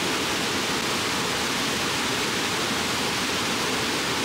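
Water pouring over a dam's curved spillway face in a wide sheet, a steady, even rush of falling water with no breaks.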